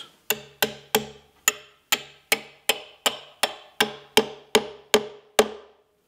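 A steel claw hammer tapping a carriage bolt through a drilled 3/8-inch hole in a wooden hive leg and wall: about fourteen steady strikes, roughly three a second, each with a short metallic ring, stopping shortly before the end.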